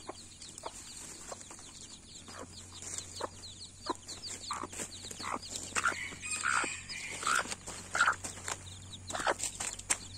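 Mother hen clucking in short notes over food, with her chicks peeping in rapid, high, falling chirps. The chick peeps run thick through the first few seconds, and the hen's louder clucks come in from about the middle on.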